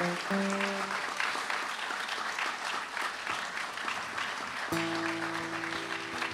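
Audience applauding. Instrument notes sound through it: a few short notes in the first second, then a held chord from about three-quarters of the way through.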